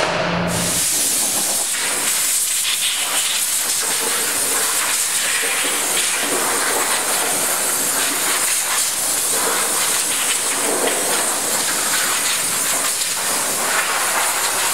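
Compressed air from a shop air-line blow gun hissing steadily as it blows excess dressing off an engine bay, starting about half a second in.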